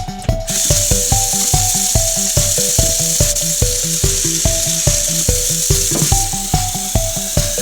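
FiF BAR-14F espresso machine hissing steadily with steam, starting about half a second in, under background music with a steady beat.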